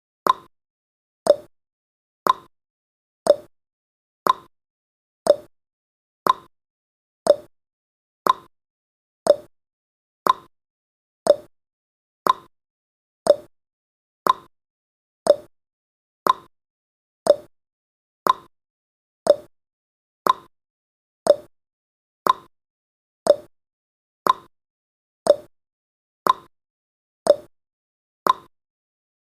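Countdown timer's tick sound effect: a short, sharp pop repeating steadily once a second, marking each second counted down.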